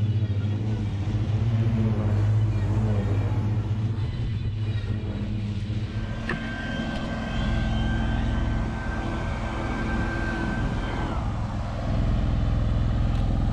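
Engines running steadily: a truck idling and a zero-turn mower working, making a continuous low hum. A steady high whine comes in about six seconds in and falls away about five seconds later, and the engine sound steps up louder near the end.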